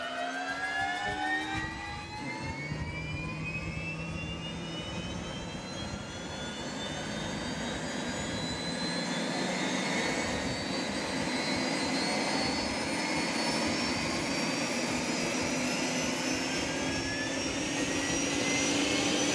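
Robinson R66's Rolls-Royce RR300 turbine engine spooling up: a layered whine rising steadily in pitch and growing slightly louder.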